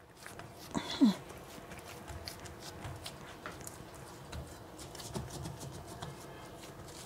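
Hands pressing and patting soft layered dough flat in a glass baking dish, giving faint soft pats and dull thuds. About a second in comes one short, louder sound whose pitch falls.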